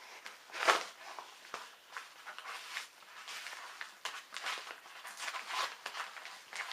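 A package being cut and torn open with a kitchen butter knife: irregular scratching, scraping and rustling of the packaging, with the sharpest rip about a second in.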